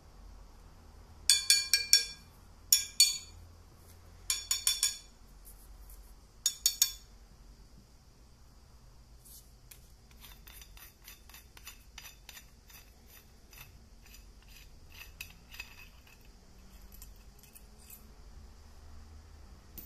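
Small steel parts of a telescopic baton clinking together in four short clusters, each with a brief ringing. Then a run of faint ticks, a few a second, as the metal end cap is twisted off the threaded handle.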